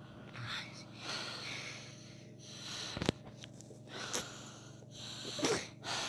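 A child breathing close to the phone's microphone, several noisy breaths in and out, with a sharp handling knock about three seconds in.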